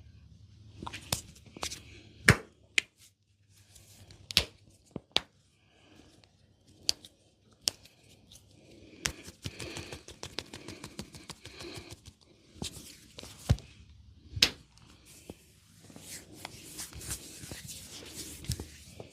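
Close-up hand massage of a person's head and ears with oil: irregular sharp clicks and taps, with stretches of skin rubbing in the middle and near the end.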